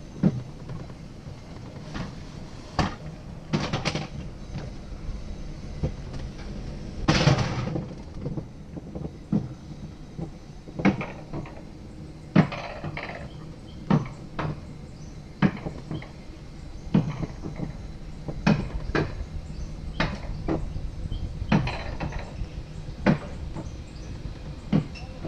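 Bobsled car rolling along its rail track: a steady low rumble with a sharp clack about every second and a half.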